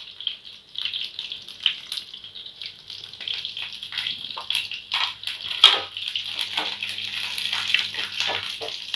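Garlic cloves and fenugreek seeds sizzling in hot oil in a stainless-steel pan, a steady hiss with scattered pops, stirred with a wooden spatula near the end.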